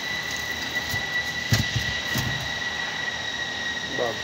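Two sharp knocks from hand tools at work on the bus's rear brake, about a second and a half and two seconds in, over a steady high-pitched whine and hiss of shop machinery.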